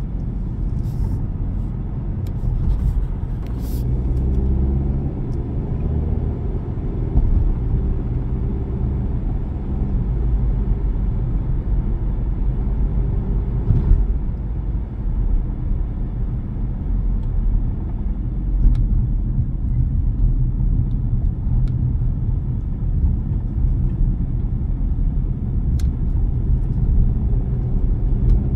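Car driving: steady low rumble of engine and tyre noise, with a humming engine note standing out for several seconds about four seconds in.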